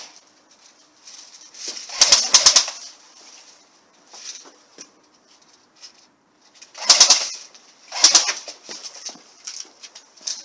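Airsoft replica fired in three short bursts of rapid clicks, about two seconds in, then about seven and eight seconds in.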